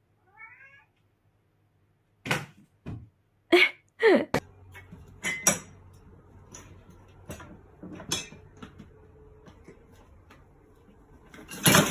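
A domestic cat giving several short meows, mixed with a few sharp clicks and knocks.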